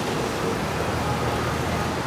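Steady city road traffic: a continuous hum of engines and tyres, with no single vehicle standing out.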